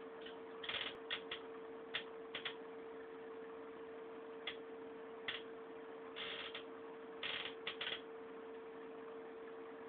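Small plastic items and meter parts being handled on a workbench: a string of short clicks with a few brief rubbing scrapes, over a steady faint hum.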